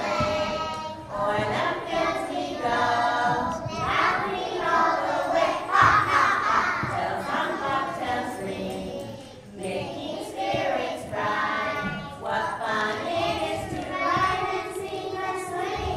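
A group of young preschool children singing together in unison.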